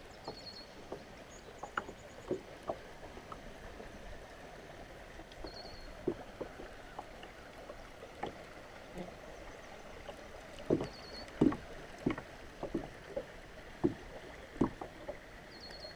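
River water lapping and slapping against the hull of an Ascend FS10 sit-on-top kayak as it drifts on the current, with irregular sharp knocks and a louder cluster of them about two-thirds of the way through. A short high trill recurs about every five seconds.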